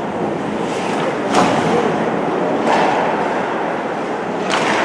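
Steady din of a large indoor sports hall, broken by three sharp knocks or slams during play, the loudest just over a second in.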